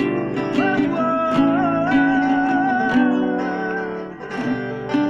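Acoustic guitar strummed in a sertanejo song, with one long wavering sung note held over the chords in the middle.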